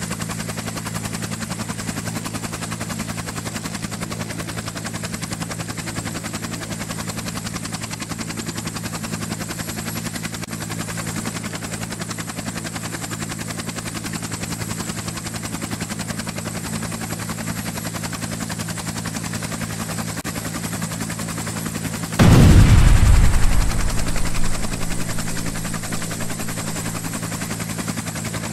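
Steady hum of a helicopter with a fine rapid beat. About three-quarters of the way through comes a sudden loud blast that dies away over a few seconds.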